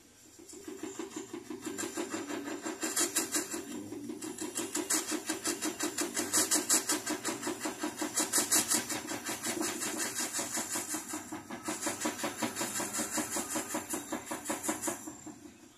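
Jeweller's soldering torch running with a fast, even mechanical pulsing while a bangle joint is soldered. It builds up over the first couple of seconds and fades near the end.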